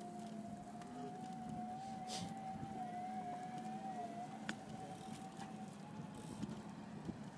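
Steady whine of an electric ride-on's drive motor, its pitch wavering slightly and dipping a little about four seconds in, over the rumble of small wheels on pavement, with a few light clicks.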